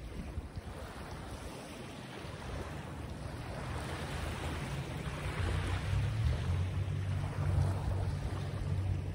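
Wind blowing across the microphone, a low rush that grows stronger over the second half.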